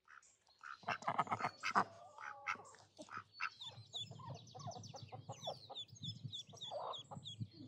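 Domestic ducks quacking in a few loud calls. From about three and a half seconds in, ducklings take over with rapid, high, repeated peeps.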